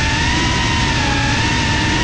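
FPV drone's electric motors and propellers whining steadily, the pitch wavering slightly with throttle, over a rush of wind noise on the onboard camera's microphone.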